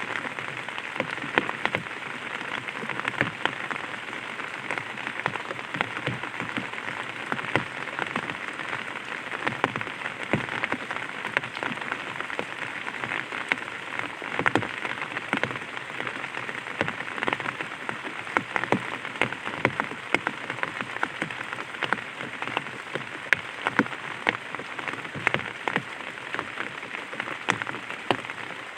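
Light rain falling on an umbrella: a steady patter with many separate drop taps.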